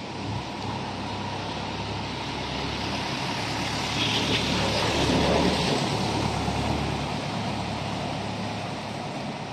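Street traffic: a small box truck drives past, its engine and tyres growing louder to a peak about halfway through and then fading as it moves on, over a steady street hiss.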